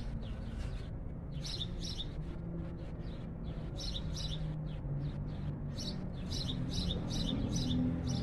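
Small birds chirping, with short high chirps coming in quick clusters again and again. A low steady hum runs underneath.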